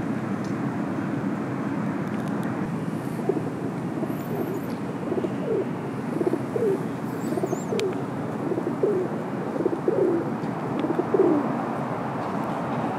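Feral pigeon cooing: a run of short, falling coos, roughly one a second, starting a few seconds in and loudest near the end, over a steady background hum.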